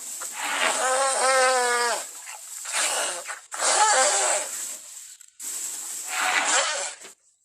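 Elephant calls in a quick series of about four, the first a long call with a wavering pitch, the others shorter and rougher.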